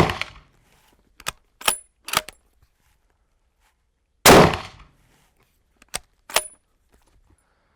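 Two shots from a Haenel Jaeger 10 bolt-action rifle in .30-06, about four seconds apart, the first right at the start. Each shot is followed about a second and a half later by three quick metallic clicks as the bolt is worked to chamber the next round.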